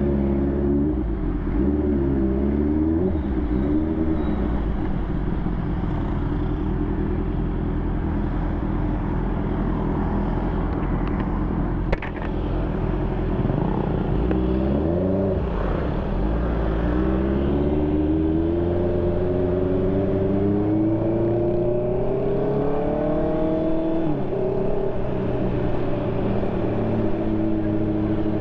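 2020 Honda CB650R's inline-four engine through an SC Project aftermarket exhaust, ridden: the engine note rises and falls with the throttle, climbing in one long pull that drops sharply as it shifts up. A single sharp click sounds about midway.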